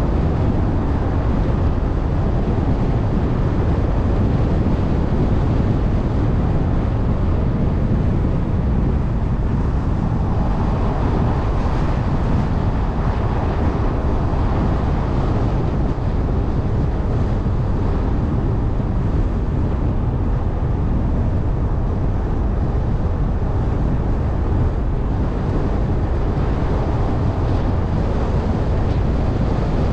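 Jeep Trailhawk SUV driving at a steady speed: a constant low rumble of tyres and engine with wind buffeting the microphone.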